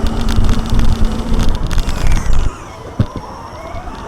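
Vehicle siren wailing, its pitch sliding down and then rising again near the end, over a loud rumble of road and engine noise that drops away about two and a half seconds in.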